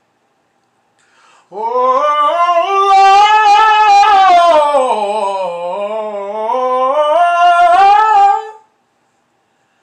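A man singing a cappella, holding one long wordless note with vibrato for about seven seconds, the pitch climbing, dipping and climbing again before he stops.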